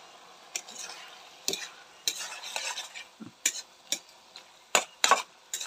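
A spatula stirring frog meat in a wok, scraping and knocking against the pan at irregular intervals over a low sizzle of frying.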